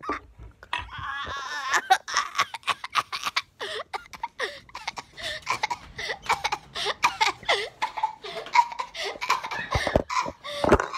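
Boys laughing hard and almost without a break, with coughing from a mouthful of dry cinnamon.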